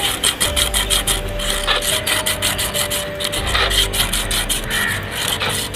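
A small piece of emery sheet rubbed by hand around the inside of a motorbike's rear brake drum, a fast, even run of short scratchy strokes. This scours off the packed brake-shoe dust that makes the drum brake noisy.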